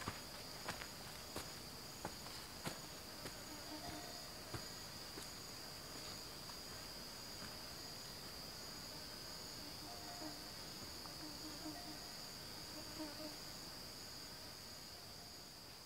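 Steady high-pitched insect chorus, cricket- or cicada-like, with a second insect pulsing regularly above it. Footsteps on the forest floor tick about twice a second in the first few seconds and fade as the walker moves away. The whole sound slowly fades near the end.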